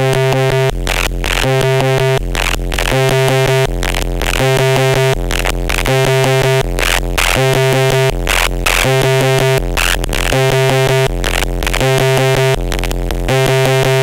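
Twintropiques 23 Psychoacoustic synthesizer playing a noisy looping pattern: a buzzy, overtone-rich tone over a low bass note that repeats about every second and a half, chopped by short stuttering gaps.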